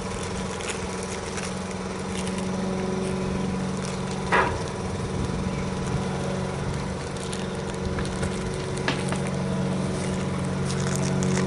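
A motor running steadily, with scattered light clicks and scrapes and a brief louder sound about four seconds in.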